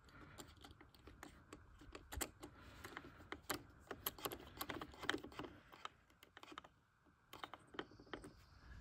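Faint, irregular small clicks and taps of a plastic GoPro buckle mount being pushed, turned and wiggled on its aluminum bracket, with a short pause about six seconds in.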